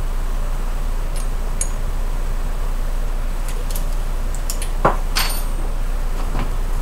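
Light clinks and taps of measuring spoons, spice jars and dishes being handled, with one louder ringing clink about five seconds in, over a steady low hum.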